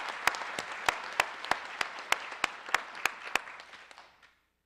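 Audience applauding, with one close clapper's sharp claps standing out about three times a second; the applause dies away near the end.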